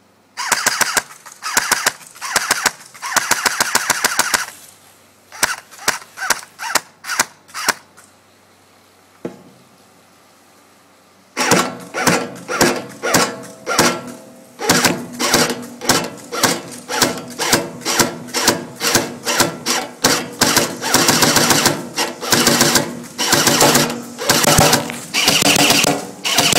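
Airsoft M4 rifle firing on full auto, a rapid mechanical rattle. It starts with short bursts, then about eight separate shots. After a pause of about three seconds it fires long strings of rapid shots over a steady tone.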